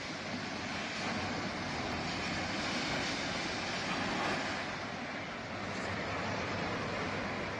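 Swat River in flash flood, a steady rushing noise of fast, heavy water.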